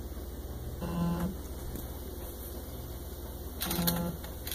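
Motor of an automated photogrammetry 3D-scanner rig making short buzzing moves, one about a second in and another near the end, with sharp clicks around the second, over a steady low hum.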